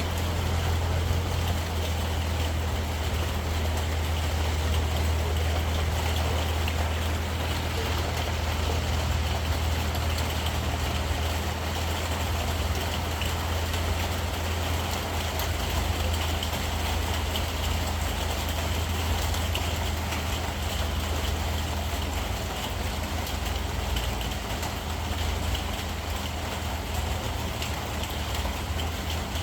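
Steady low drone under an even hiss, with no clear breaks or distinct events.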